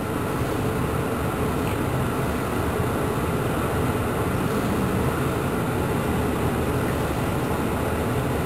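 A steady, even rushing noise with a faint hum underneath, and no distinct knocks or clicks.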